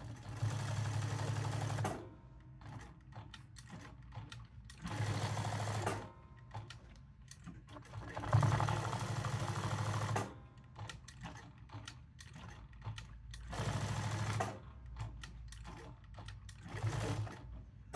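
Jack S5 industrial sewing machine stitching a leather patch onto a hat in about five short runs of one to two seconds each, with the needle stopping between runs while the hat is turned. The loudest run comes about eight seconds in, and small clicks and handling sounds fill the pauses.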